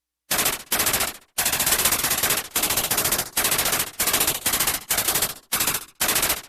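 Synthesized sci-fi energy weapon firing in rapid automatic bursts: about eight bursts of quick pulses, each under a second long, with short gaps between them.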